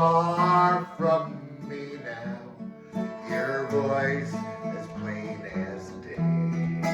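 Country-style band music led by acoustic guitar, playing an instrumental passage without singing.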